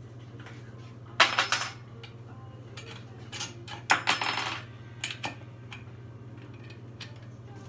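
Metal parts and hardware clinking and rattling as a metal stand is handled and assembled. There are two louder rattling bursts, one about a second in and one near the middle, and a few lighter clicks after them, over a steady low hum.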